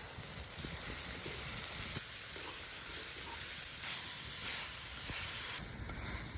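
Boiled vegetable and onion-tomato mix sizzling steadily in hot oil in a pan, a constant hiss as the poriyal fries.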